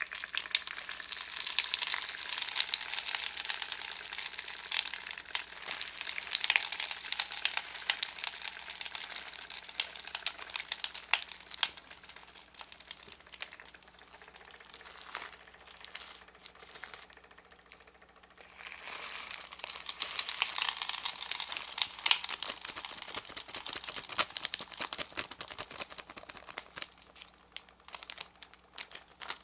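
Popping candy crackling and fizzing as it dissolves in liquid in a self-stirring mug: a dense run of fine pops. It dies down after about twelve seconds, flares up again a few seconds later and fades near the end.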